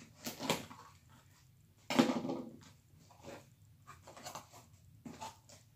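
Packing material and a small cardboard box being handled and dug through by hand: a series of short rustling, crunching bursts, the loudest a sharp one about two seconds in.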